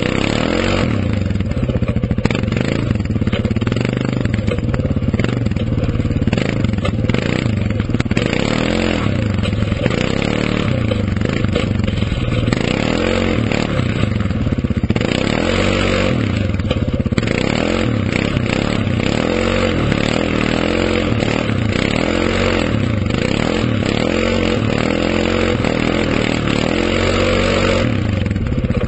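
2011 Suzuki King Quad 750 ATV's single-cylinder four-stroke engine running hard under load. From about eight seconds in it revs up and drops back over and over, every second or two, as the throttle is worked through the mud.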